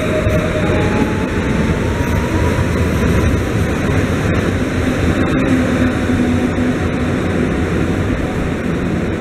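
Electric multiple unit EN75-001 (a Pesa Elf) departing and gathering speed: wheels rumbling on the rails with a few sharp clicks, and a faint slowly rising whine of the traction motors. The sound eases slightly near the end as the train pulls away.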